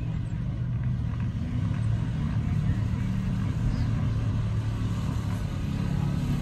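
Air-cooled VW-based off-road buggy engine running steadily, a low, even engine note without revving.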